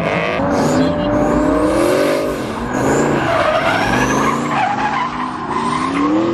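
Drift cars' engines revving hard, their pitch rising and falling, with tyres skidding and squealing as the cars slide sideways.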